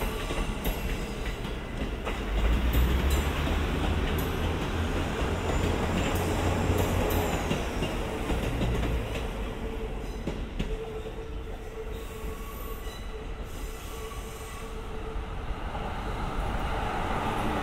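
KiYa E195 series rail-transport train rolling slowly past while being shunted: a steady low rumble, heaviest from about two to nine seconds in, with wheels clacking over rail joints and squealing on the yard track.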